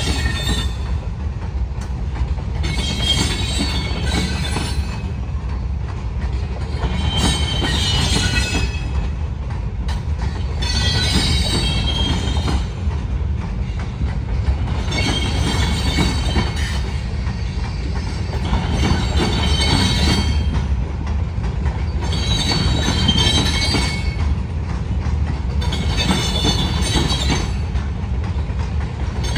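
Freight train of hopper and tank cars rolling slowly past: a steady low rumble of wheels on rail, with a high-pitched metal-on-metal squeal that comes back about every four seconds.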